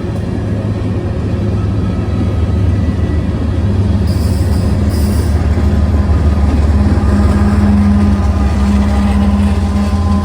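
Diesel locomotive running loud and steady: a deep rumble with a low hum that builds slowly. Two short high hisses come about four and five seconds in.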